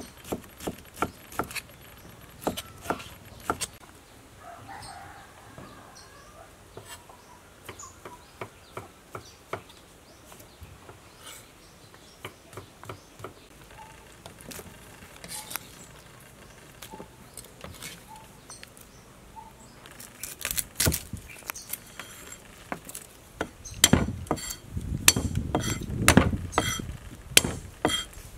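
Kitchen knife cutting on a wooden chopping board: quick cuts at about three a second through boiled bamboo shoots, then scattered cuts. Much louder, heavier knocks on the board come in the last several seconds as garlic is cut.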